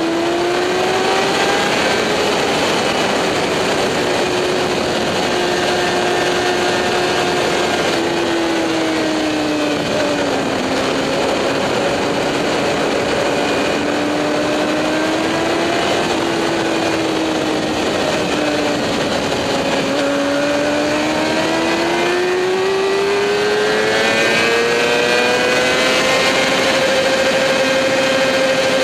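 Motorcycle engine heard on board at track speed, its note rising and falling smoothly with throttle through the corners and climbing steadily near the end, over a constant rushing noise.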